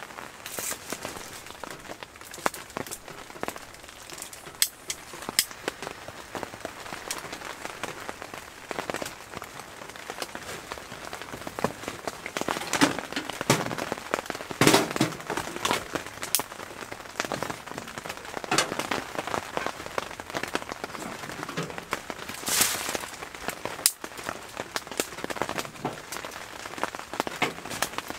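Steady rain pattering on a hot tent's fabric, with irregular sharp crackles and pops from wood burning in the tent's stove.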